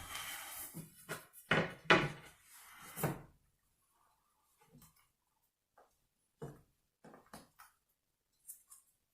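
A maple hardwood floor plank being worked into place: scraping and a few sharp knocks of wood on wood in the first three seconds, the loudest about two seconds in, then a few scattered light taps.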